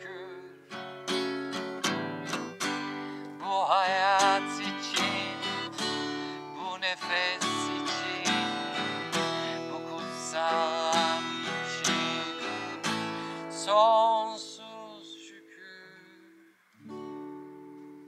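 Acoustic guitar strummed steadily, with a man singing over it in a wavering voice. The song winds down about three-quarters of the way through, and one last chord rings out near the end.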